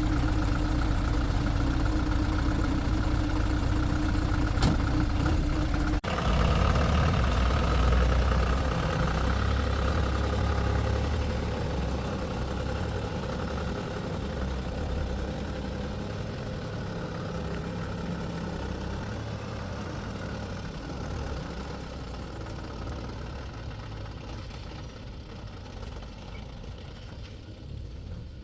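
A vehicle engine running steadily, with a steady hum that cuts off about six seconds in; the engine sound then slowly fades over the rest of the stretch.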